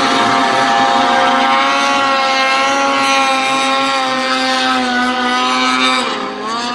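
Racing snowmobile skimming across open water, its two-stroke engine running at high, steady revs. Near the end the engine note dips briefly and climbs again.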